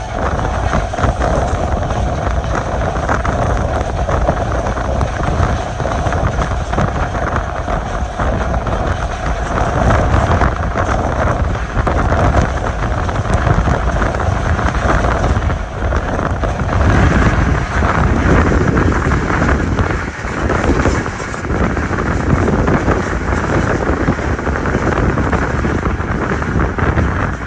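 Passenger train running along the track at speed, a steady rumble of wheels on rails with wind buffeting the microphone.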